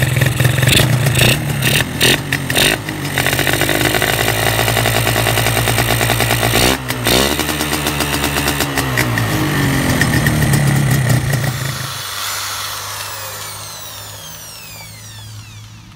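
Yamaha 125ZR's single-cylinder two-stroke engine running, its revs dipping and climbing again once about seven seconds in. It stops about twelve seconds in, followed by a high whine that falls in pitch as it fades.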